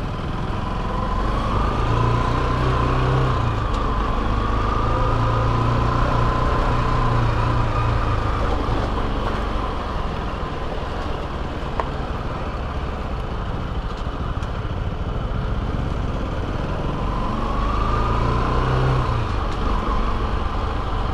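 Motorcycle engine running under way, with road and wind noise. Its pitch rises and falls with speed twice, early in the stretch and again near the end.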